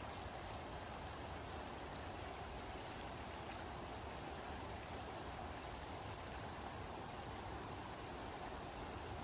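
Steady rush of river water pouring over a low concrete weir and splashing into the foaming water below.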